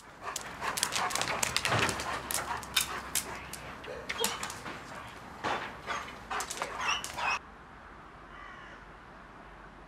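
German Shepherd dog barking in short, irregular barks, with a few brief high whimpers; the barking cuts off suddenly about seven seconds in, leaving a faint steady hiss.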